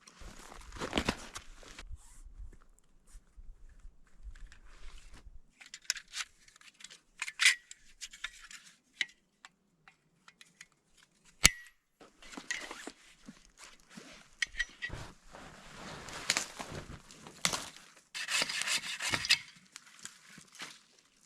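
Irregular rustling, crinkling and scraping as the leftover mochi is packed away and gear is handled, with scattered clicks and one sharp click about eleven seconds in.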